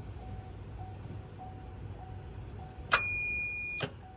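Truck cabin warning chime, a faint ding repeating a little under twice a second, with a loud steady electronic beep about a second long near the end.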